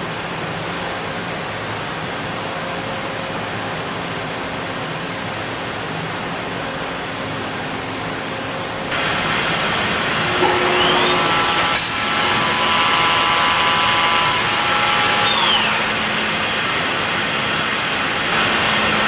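Steady machine-shop hum. About nine seconds in it gets louder, and a Makino a71 horizontal machining center's spindle spins up with a rising whine. It runs with several steady high tones and a sharp click, then winds down with a falling whine about sixteen seconds in, while a 4 mm ball nose end mill is checked for breakage.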